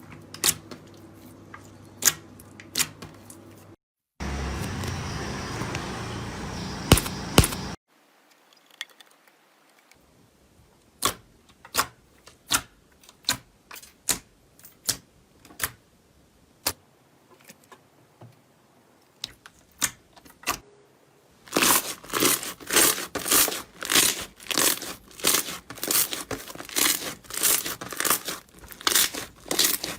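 Slime being squeezed and poked close to the microphone in a run of short clips: sharp clicks and pops, a few seconds of steady hiss after about four seconds, then evenly spaced pops, and from about two-thirds in a dense, rapid series of loud pops and crackles.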